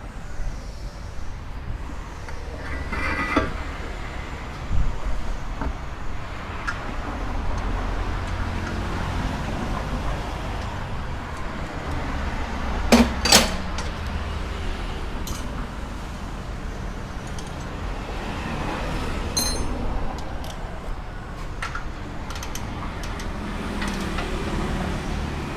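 Scattered metallic clinks and knocks of tools and parts being handled while removing a worn upper ball joint from a pickup's upper control arm, with two sharp metal knocks close together about halfway through. A steady low rumble runs underneath.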